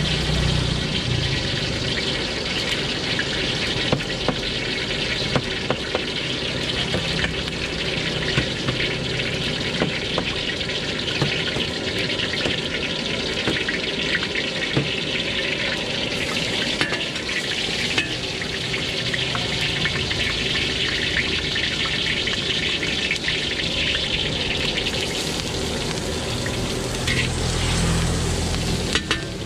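Oil sizzling in a hot wok: a steady hiss broken by sharp little pops about once a second. The sizzle grows louder near the end as chopped garlic and greens go into the oil and are stirred with a metal spatula.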